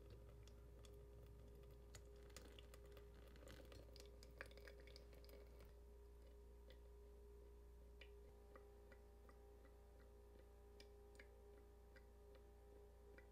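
Near silence with faint, irregular ticks and drips of coffee running through a stainless-steel pour-over cone into a glass carafe, over a steady low hum.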